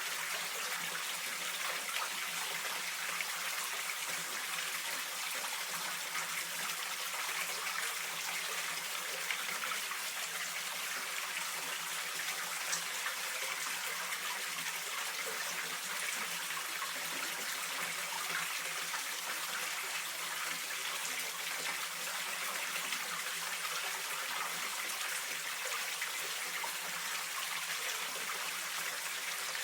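Steady rush of running water from a mountain stream, an even hiss with no breaks or changes.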